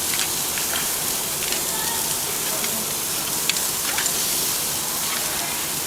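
Pre-marinated lamb pieces sizzling on a hot charcoal grill, a steady hiss with scattered small crackles.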